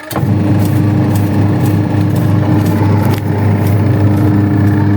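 Washing machine motor switching on abruptly and running with a steady, loud hum, turning the pulsator, with scattered light clicks.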